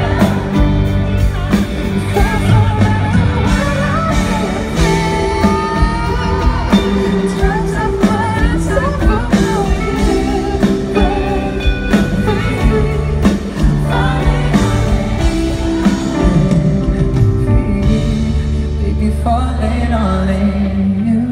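Live pop song: a male lead vocal singing over acoustic guitar, bass and band.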